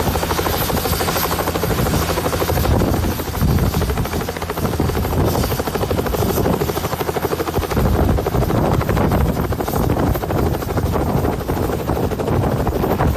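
Helicopter idling on the ground at close range, its main rotor turning with a rapid, steady chop over the engine noise.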